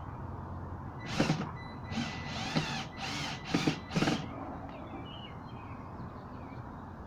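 Cordless drill driving screws in several short bursts, its motor speeding up and slowing with each trigger pull, as an amplifier is screwed onto a speaker box.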